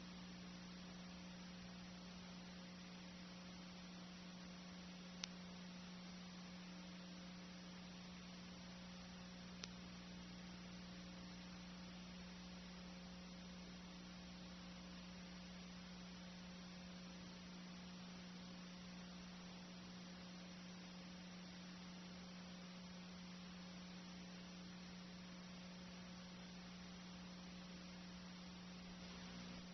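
Near silence: a steady low electrical hum over faint hiss, with two small clicks, one about 5 seconds in and one about 10 seconds in.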